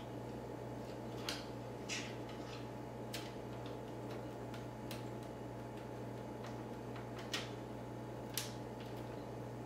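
Scattered light clicks and taps of power cables and connectors being handled and routed inside a computer case, about six in all at uneven intervals, over a steady low hum.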